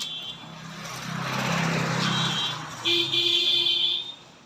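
A motor vehicle passing by, its noise swelling and fading with a low hum. About three seconds in comes a loud high-pitched tone lasting about a second.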